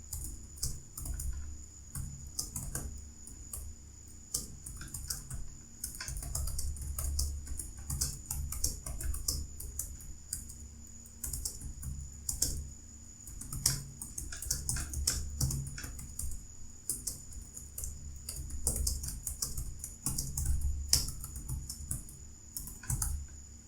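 Fast, continuous typing on a computer keyboard during a timed typing-speed test: a dense, irregular run of key clicks with dull thumps of keys bottoming out, over a faint steady high-pitched whine. The typing stops just before the end.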